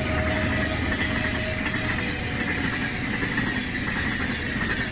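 Egyptian National Railways passenger coaches rolling past close by, a steady loud rumble of wheels running over the rails with a high steady whine above it.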